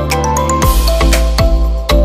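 Electronic background music with a steady beat and bass notes; a little over half a second in, a rushing swell and a deeper bass come in.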